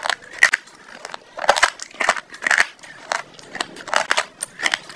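Close-up chewing of crunchy food: a rapid, irregular run of sharp crunches and crackles.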